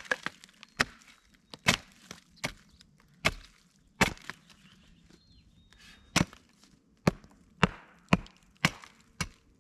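Kindling being chopped from pitch-rich wood for a campfire: about a dozen sharp strikes of a blade into wood, with a pause of about two seconds in the middle.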